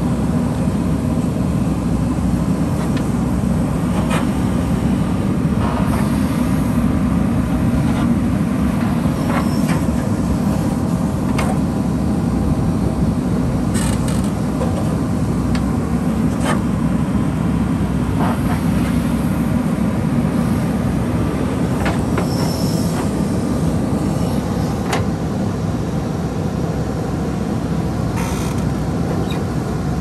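JCB 3DX backhoe loader working its backhoe arm: the diesel engine runs steadily under load, with a thin hydraulic whine on top. Scattered clanks and scrapes come from the steel bucket digging into gravel.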